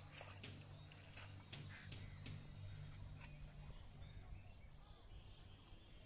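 Quiet outdoor ambience, close to silence: a faint low hum with a few soft scattered clicks in the first couple of seconds and faint chirps later on.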